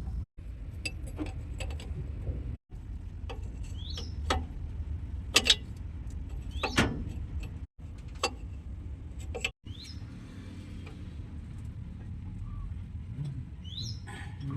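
Scattered metallic clicks and clinks of tools on truck brake parts, over a low steady rumble, with a few short bird chirps.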